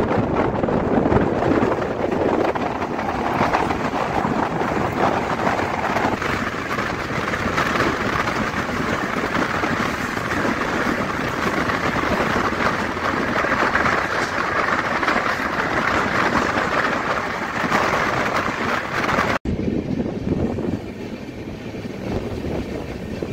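A moving express train's LHB coaches running at speed, heard from an open door: a steady rush of wind and wheel-on-rail noise. It breaks off abruptly near the end and goes on quieter.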